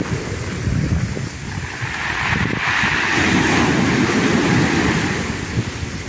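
Sea surf breaking and washing up a pebbly shore, its foaming hiss swelling about two seconds in and easing near the end, with wind buffeting the microphone as a low rumble underneath.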